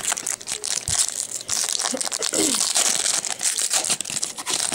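Foil wrapper of a 2008 Upper Deck Masterpieces football card pack being torn open and crinkled in the hands: a dense run of crackles and rustling that grows louder about a second in.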